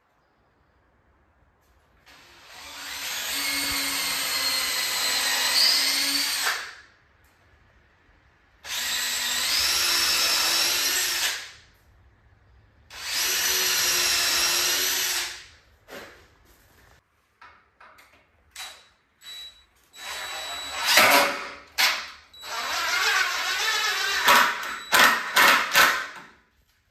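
DeWalt 20V cordless impact driver driving screws into a 2x4 rail: three long runs of several seconds each, then a few short bursts, then two more runs near the end.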